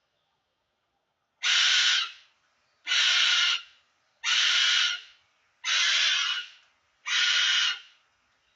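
A pet bird screaming, alarmed by its owner's cry of pain: five loud, harsh screams about a second and a half apart, each lasting just over half a second.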